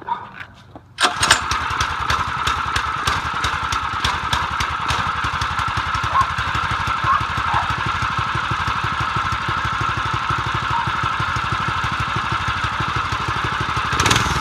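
Predator 212 cc single-cylinder four-stroke engine on a rebuilt mini bike catching about a second in on its first start, then running steadily with an even, rapid exhaust beat.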